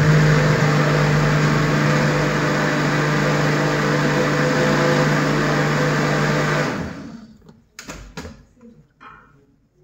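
Countertop jug blender running steadily as it purees cooked butternut squash with milk into soup, then winding down and stopping about seven seconds in. A few faint knocks follow.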